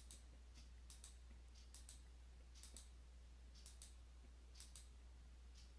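Faint computer mouse clicks, mostly in quick pairs about once a second, over near silence with a low steady hum.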